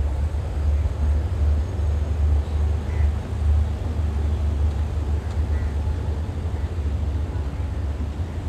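Wind buffeting the microphone outdoors: a loud, gusty low rumble that rises and falls from moment to moment.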